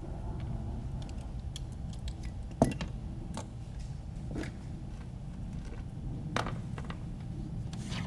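Light clicks and knocks of a hex driver and a carbon-fibre drone frame being handled and set down on a silicone work mat, the loudest knock about two and a half seconds in, over a steady low background noise.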